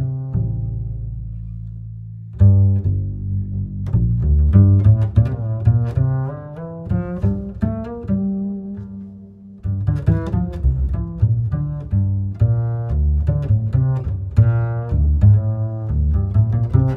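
Background music: a string piece with a deep double-bass line under plucked and bowed notes in a steady rhythm.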